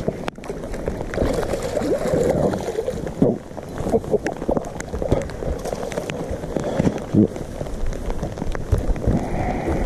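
Wind buffeting the microphone, with water splashing and scattered small knocks as a hooked bass is played to the boat and landed.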